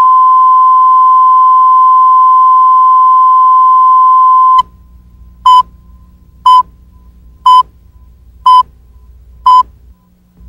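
Videotape line-up test tone, one steady pitch held for about four and a half seconds before cutting off sharply, then the countdown leader's short beeps at the same pitch, five of them one second apart.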